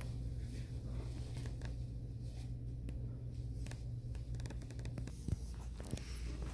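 Quiet small-room tone: a steady low hum that drops away about five seconds in, with faint scratching and rustling throughout and a few sharper clicks near the end.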